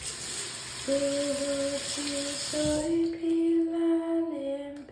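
A woman singing a tune softly in long held notes, beginning about a second in. Behind it is a steady hiss that stops about three seconds in.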